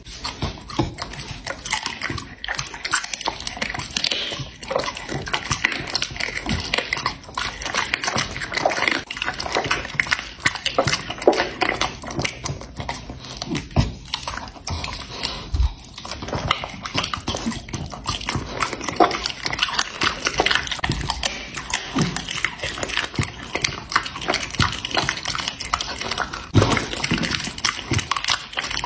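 Bulldog chewing raw meat held out to it by hand: continuous smacking and crunching, a dense run of quick clicks.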